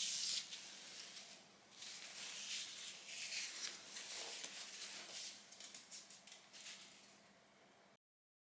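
Quiet, repeated rubbing strokes as the screen bezel of a MacBook Pro A1502 is wiped down by hand. The sound cuts off suddenly near the end.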